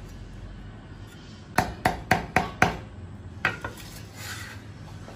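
Chinese cleaver chopping scallion on a thick wooden chopping block: a quick run of five chops, about four a second, a little past halfway, then one more chop.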